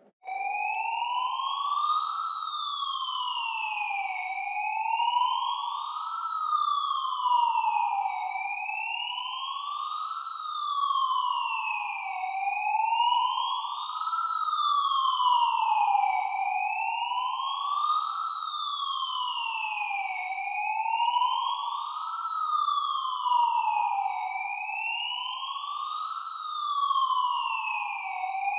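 Emergency-vehicle siren in wail mode. It starts abruptly just after the beginning, then glides smoothly up and down in pitch, about two seconds rising and two falling, over and over.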